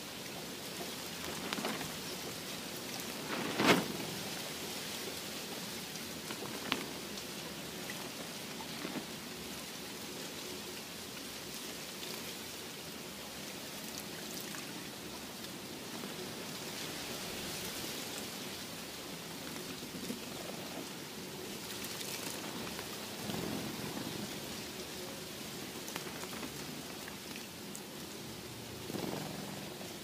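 Sparrows splashing as they bathe in a shallow water basin, heard as a steady rain-like pattering hiss, with a few sharp clicks, the loudest about four seconds in.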